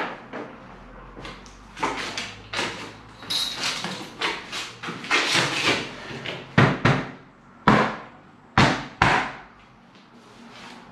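Knocks and taps on a UPVC bay window frame as its trim is fitted. Scraping and handling noise fills the first half, then five sharp knocks come in the second half.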